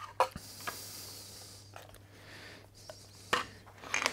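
Small wooden box panels being handled and set down on a wooden workbench: a few light knocks of wood on wood, and a scraping rub of wood sliding on wood in the first second or so.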